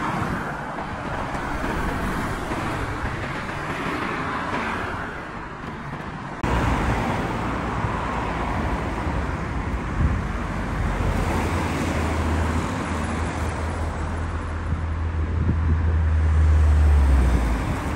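Road traffic on a busy main road: cars driving past close by. A deep rumble builds up in the second half and stops shortly before the end.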